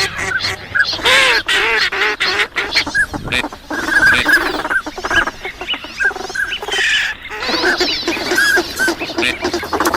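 A flock of ducks, mallards among them, calling together: many short quacks and whistled notes overlapping continuously, the kind of calling played to lure wild ducks.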